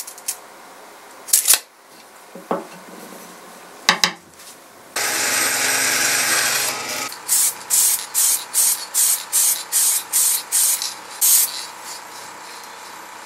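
A few clicks and knocks from handling a tape measure and a wooden dowel. About five seconds in, a benchtop bandsaw cuts through the dowel for about two seconds. A run of quick rasping strokes follows, about three a second, over the saw's steady motor hum.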